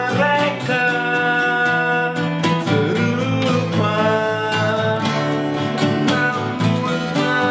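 Two acoustic guitars playing a song together with a steady strummed rhythm, with a man singing over them.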